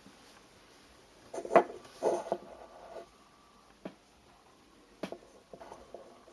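Small hard objects handled on a work surface: a short clatter of knocks about a second and a half in, then a few single knocks and taps.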